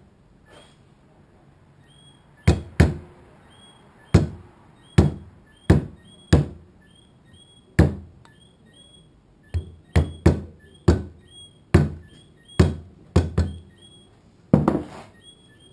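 A mallet striking the handle of a wood-carving gouge, driving it into a small wooden carving: sharp, irregular knocks, about sixteen in all, coming closer together in the second half.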